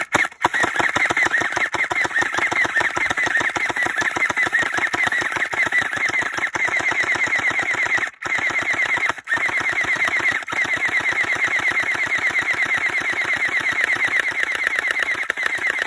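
Gel blaster firing on full auto in a long, rapid, even stream of shots, breaking off twice briefly around the middle.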